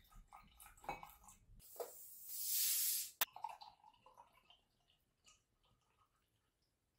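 Drinks being poured into a glass: a faint trickle of soju, then a fizzing hiss lasting about a second and a sharp click as a beer bottle is opened, followed by beer being poured into the glass to make somaek.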